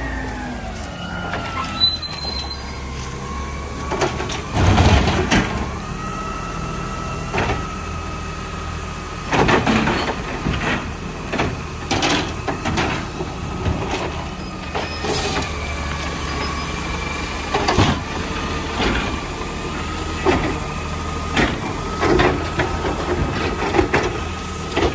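Garbage truck running, with a steady whine that wavers a little in pitch and repeated clanks and bangs, the loudest about five and ten seconds in.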